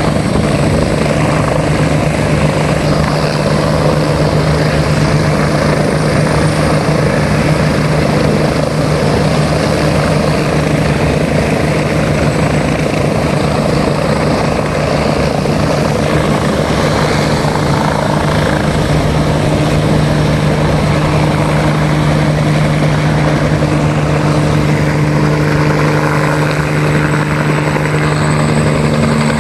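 Several helicopters flying low, their rotors and engines running in a loud, steady drone.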